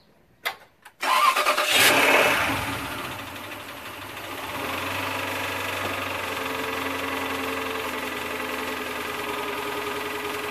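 Replacement Toyota V8 engine on its first test start, running with no serpentine belt or fan: two short clicks, then it cranks and fires about a second in, flares up, dips, and settles into a steady idle. The engine has bad rod knock, the sign of a failed engine.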